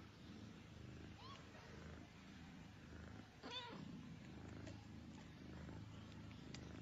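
Nursing mother cats purring faintly and steadily, while a newborn kitten gives a short rising squeak about a second in and a louder, wavering mew about three and a half seconds in.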